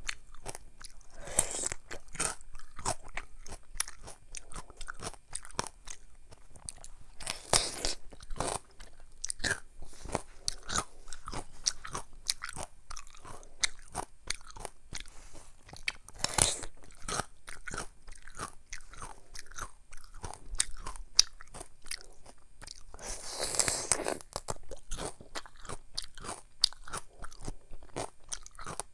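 Crunchy chewing and biting of mini Korean melon (chamoe) close to the microphone: a dense run of small crunching clicks, with four louder, longer crunches spread through.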